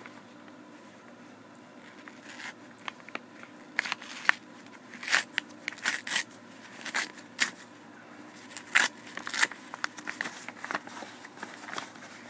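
Brown paper mailing envelope being torn open by hand: irregular rips and crinkling paper starting about two seconds in, the loudest tears around the middle.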